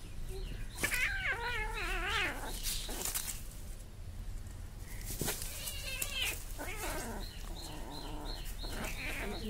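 Kittens' fighting cries: one long yowl with a wavering pitch about a second in, then shorter cries as they wrestle.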